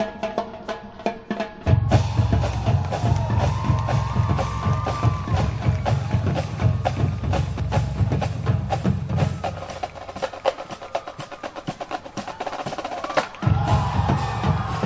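College marching band playing a percussion-driven passage: rapid sharp clicks throughout, with bass drums and horns coming in about two seconds in. The bass drums drop out for a few seconds and come back near the end.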